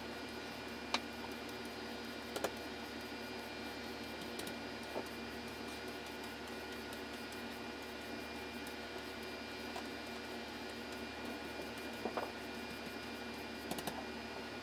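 Steady electrical hum and hiss in a small room, with a few faint clicks and knocks scattered through it as a broom is pushed and tapped across a bare floor.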